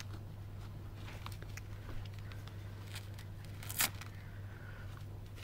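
Baby sucking and mouthing on its fist: scattered soft wet clicks, with one louder click a little before four seconds in, over a steady low hum.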